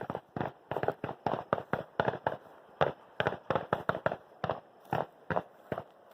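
A rapid string of firecracker bangs: about twenty sharp cracks at uneven spacing, three or four a second, starting suddenly and stopping near the end.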